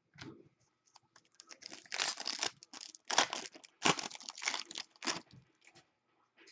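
Wrapper of a Full Force hockey card pack being torn open and crinkled, in several rough bursts over about four seconds.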